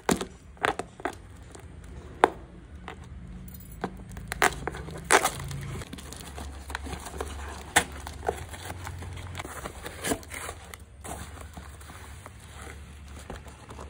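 Hands tearing open a taped cardboard parcel: packing tape and cardboard ripping and plastic wrapping crinkling, in irregular sharp crackles and snaps over a low steady hum.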